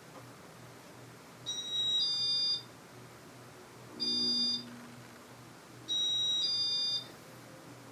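Casablanca ceiling fan's electronic control beeping as it is given commands: three short high beeps about two seconds apart, the first and last stepping from a lower to a higher tone.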